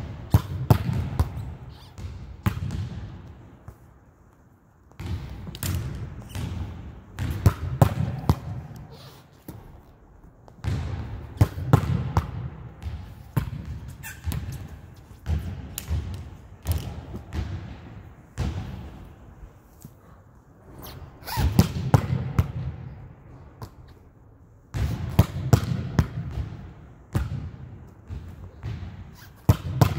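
A volleyball smacked repeatedly against a block wall and off a player's hands, echoing in a gym. The strikes come in runs of several sharp hits, with short pauses between runs.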